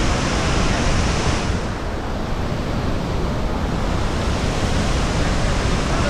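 Steady rushing of a large waterfall in flood, mixed with wind buffeting the microphone. The high hiss dulls for a few seconds from about a second and a half in, then comes back.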